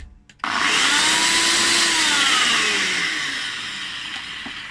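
Electric countertop blender motor switching on suddenly and running at full speed, whipping soapberry shampoo and olive oil into a froth. Its pitch and loudness sink gradually over the last couple of seconds before it stops near the end.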